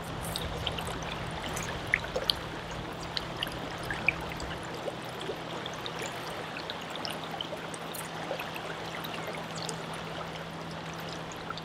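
River current flowing steadily over shallow riffles, a constant rush of water with scattered small ticks.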